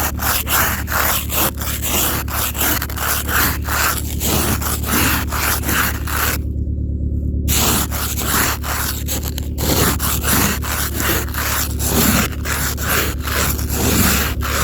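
Hand ice scraper scraping ice off a car in quick repeated strokes, with a pause of about a second near the middle.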